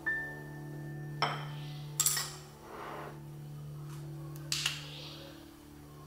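Metal kitchen tongs clinking against a glass jar and a ceramic plate as pickled cucumber slices are served, a few sharp clinks in the first half; a couple of small clicks follow a little past the middle as a small chili oil bottle is handled and opened.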